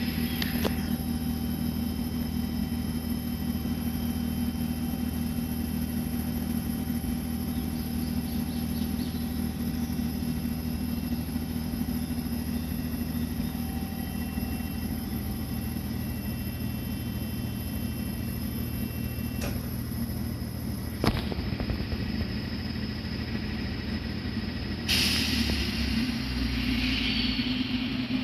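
Hakone Tozan Railway electric train standing at the platform with its equipment running: a steady low hum with several thin electrical whines over it, the whines dropping out a little after two-thirds of the way through. A sharp click follows shortly after, and a burst of hiss starts near the end.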